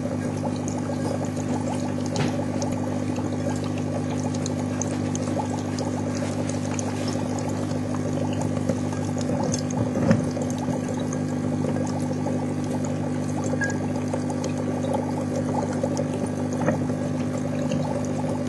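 Water fizzing and bubbling steadily in a glass jar as an HHO electrolyser splits it into hydrogen and oxygen, with a few small pops, the largest about ten seconds in. Under it runs the steady low hum of the small pump that drives the gas out.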